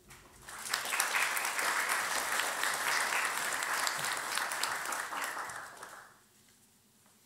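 Audience applauding, building up within the first second, then dying away about six seconds in.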